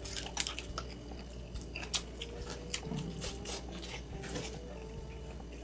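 Close-up chewing and biting sounds of a person eating, an irregular run of short clicks and smacks.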